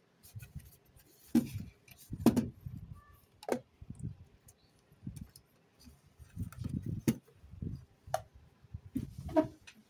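Handling noise from a metal DVD-player case and a small loudspeaker being picked up, turned over and set down on a cloth-covered bench: irregular knocks, clicks and dull thumps.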